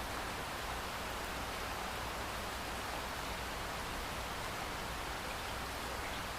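Steady pouring rain, an even hiss with no single drops or other events standing out.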